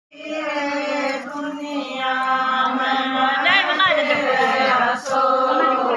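Women singing a Haryanvi devotional bhajan, holding long drawn-out notes.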